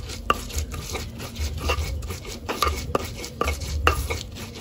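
Stone pestle (ulekan) grinding spice paste in a stone mortar (cobek): repeated grinding strokes, a rubbing rumble with sharp knocks of stone on stone, a few to the second.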